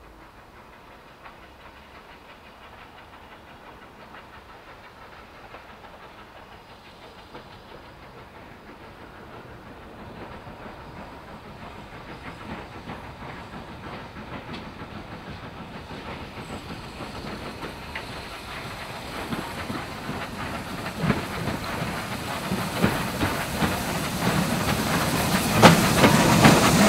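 LMS Fowler 3F 'Jinty' 0-6-0 tank engine 47406 approaching with a train of coaches. Its steam exhaust and the clatter of wheels on the rails grow steadily louder as it nears, loudest near the end as it comes level.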